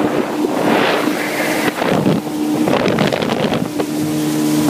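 Jet ski engine running steadily as the watercraft cruises slowly, a constant droning tone, with wind buffeting the phone's microphone.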